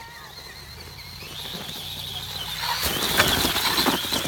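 RC truck's motor whining, louder as it drives closer, then its tyres crunching and scattering gravel from about three seconds in.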